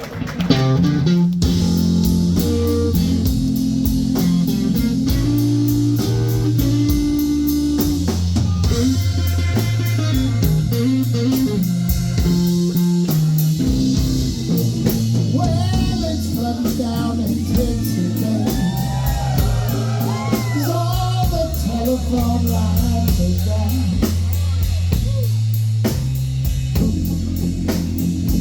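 A live blues band starts up about a second in and plays a slow blues instrumental intro. An electric lead guitar bends notes over bass and drums, with steady cymbal ticks.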